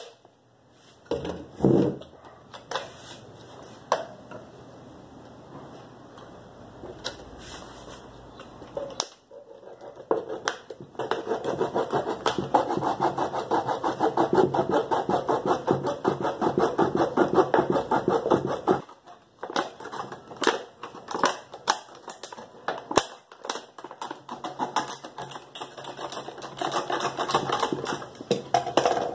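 Small hand saw cutting through the hard plastic neck of a PET jug in quick back-and-forth strokes, steadiest and loudest for about eight seconds in the middle, with scattered knocks and clicks of the jug being handled around it.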